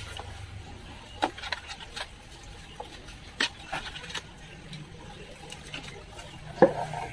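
Scattered light clicks and taps from hands working a lead wire at the centre of a 15-inch speaker cone, with a few louder knocks near the end as the speaker is handled.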